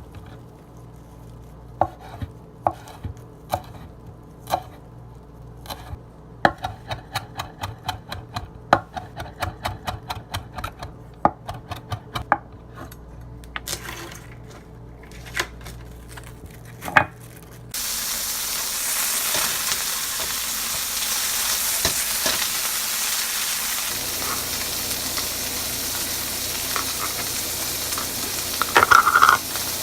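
Short clicks and knocks of kitchen utensils working food, then, about two-thirds of the way through, a sudden start of steady sizzling as food fries in a hot pan, with a brief louder spurt near the end.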